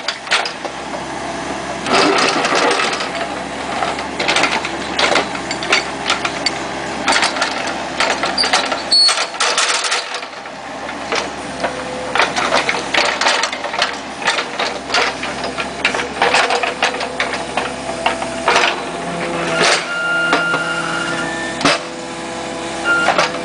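Kubota KX71-3 mini excavator's diesel engine running steadily under load while its bucket digs, with frequent knocks and scrapes of the steel bucket against dirt and stone in the trench.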